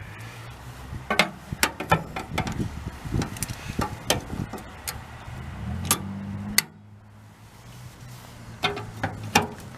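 Sharp metallic clicks and knocks from hand tools working on a VW bus fuel-door latch, coming in irregular clusters. A low steady hum lies under the first two-thirds and stops about two-thirds of the way through.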